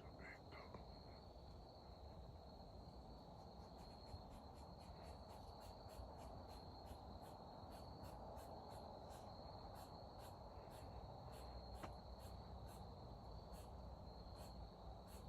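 Faint insect chorus: crickets or similar insects keep up a steady high trill, with regular short chirps about twice a second joining in. A few brief bird chirps sound near the start.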